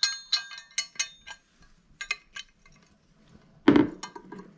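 Small metal parts of a Baldwin door latch clinking and clicking as the thumb piece is fitted by hand: a quick run of light, ringing metal clinks at first, then a few scattered ticks, and one heavier knock about three and a half seconds in.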